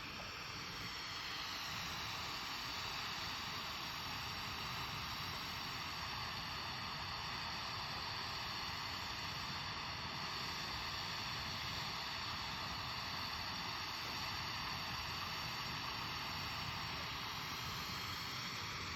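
Steady hiss and rush of a glassworking torch flame, rising slightly about a second in.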